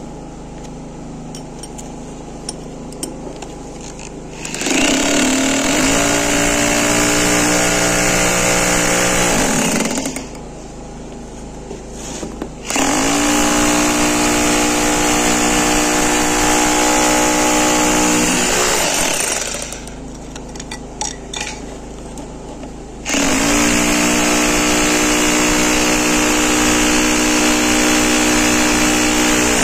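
Electric demolition hammer with a flat chisel breaking up floor tiles and screed. It hammers in three runs of about five to seven seconds each, winding up at the start of each run, with quieter pauses between.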